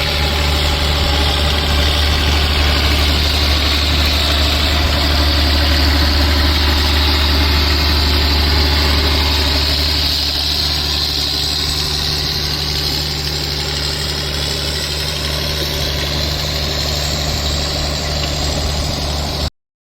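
John Deere 4055's straight-piped six-cylinder turbo diesel idling steadily with a deep, even drone. It eases a little about halfway through and cuts off suddenly near the end.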